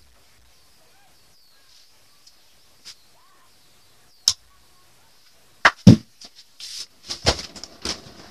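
Handling noise of the camera being picked up, moved and set in place: scattered sharp knocks and clicks, one heavy thump about six seconds in, then a quick run of knocks and rustling near the end.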